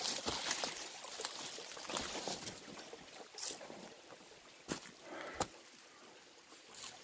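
Footsteps on a forest floor: irregular rustling and crackling of leaves and twigs underfoot, with a few sharper cracks in the second half.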